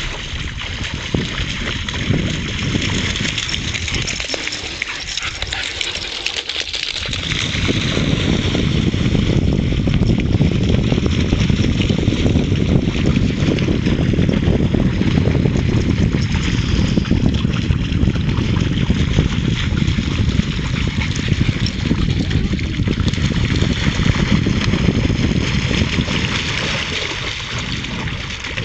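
White Shepherd dogs splashing and tussling in shallow lake water, with wind buffeting the microphone in a steady low rumble that grows stronger about seven seconds in.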